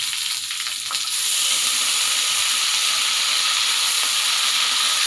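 Hot oil sizzling steadily in a wok as water spinach is stir-fried with shallots, garlic and chili. The sizzle gets louder about a second in, when the wet greens go into the pan.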